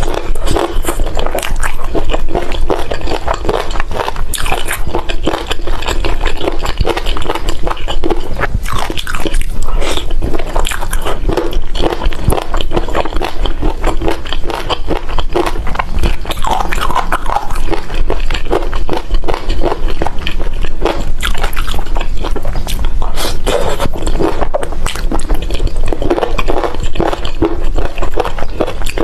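Close-miked eating: continuous wet chewing and biting of saucy braised meat, full of rapid small mouth clicks and crackles.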